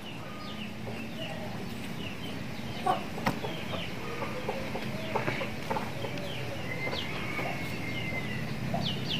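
Chickens clucking in the background, with one longer call late on, and a couple of light metallic clicks from piston rings being handled about three seconds in.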